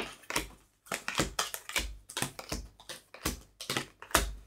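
Oracle cards being handled and laid down on a hard tabletop: a quick, irregular string of short taps and card flicks, about four a second.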